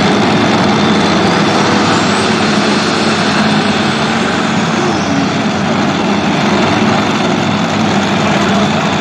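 Turbocharged diesel engine of a pulling tractor running flat out under heavy load as it drags a weight-transfer sled; a loud, steady engine noise throughout.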